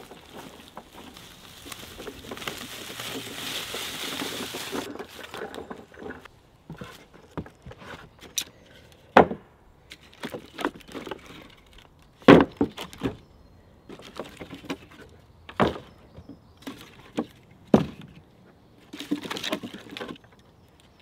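Split firewood logs being set down by hand into a wooden pallet-wood box: a series of separate hollow wooden knocks and clunks a second or a few apart, with a short clatter near the end. It opens with a steady rustling noise that stops about five seconds in.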